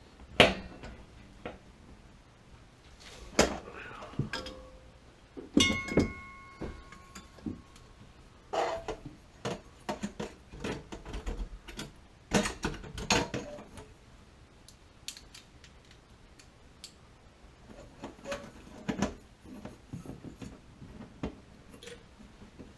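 Scattered metal clinks, knocks and rattles from tools and plumbing parts being handled, one clink about six seconds in ringing briefly.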